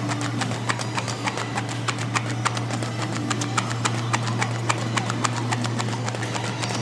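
Heavy battle ropes slapping the floor in rapid waves, about three sharp slaps a second, over a steady low hum.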